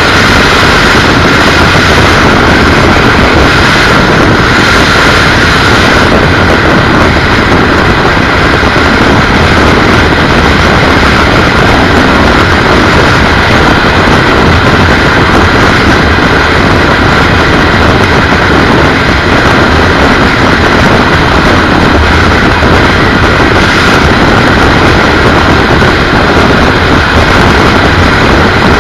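Loud, steady wind rush and road noise on a helmet-mounted camera riding pillion on a BMW R1200GS motorcycle at highway cruising speed, with the bike's engine running underneath.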